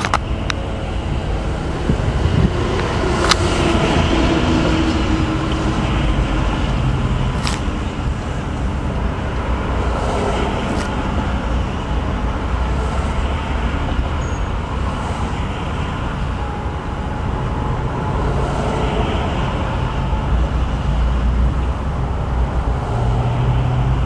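Street traffic noise: a steady low rumble of car and truck engines and tyres on the road, with a couple of sharp clicks.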